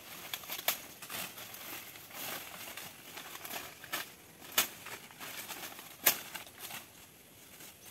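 Dry, dead banana leaves rustling and crackling as they are pulled and cut from the plant, with several sharp cracks, the loudest two a little past halfway and about three-quarters of the way through.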